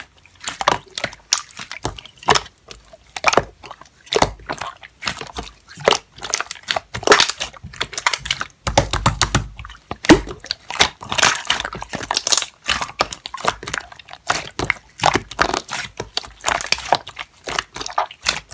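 Slime being squeezed and pressed by hand, with dense, irregular crackling and popping.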